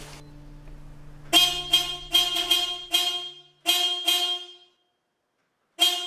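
Car horn giving a string of short toots, all on the same pitch: five quick ones, a pause, two more, then a last one near the end.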